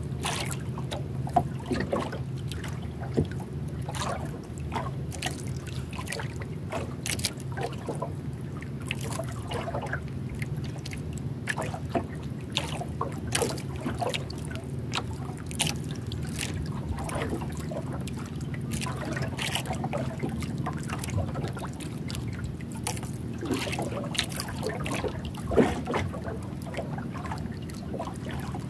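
Small waves lapping and splashing against the hull and outrigger of a small outrigger canoe drifting at sea, in many short irregular slaps and trickles. A steady low hum runs underneath.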